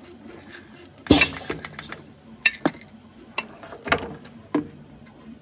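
Metallic clanks and clicks as a metal injection mold is unclamped from a benchtop injection molding machine and handled: one loud clank about a second in with a quick rattle after it, then several separate lighter clicks.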